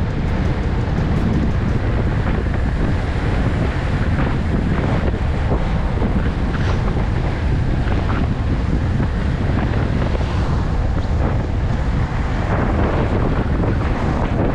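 Wind buffeting the microphone of a camera carried on a moving ride: a loud, steady rush, heaviest in the low end.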